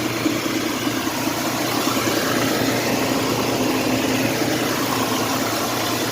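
Mitsubishi Montero engine idling steadily, running after its fuel pump was replaced to cure a long crank time.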